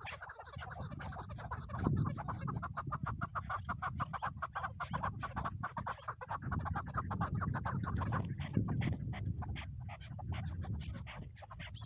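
Chukar partridge calling: a fast, sustained run of clucking 'chuk' notes, several a second, over a low rumble.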